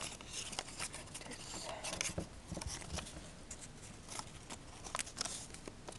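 Sheet of paper being folded and creased by hand: scattered crisp crackles and rustles, with a few sharper ticks about two seconds in and again around five seconds.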